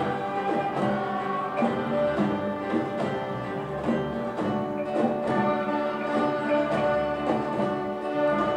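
Children's orchestra playing a piece, with bowed violins, guitars and marimba together in held, overlapping notes.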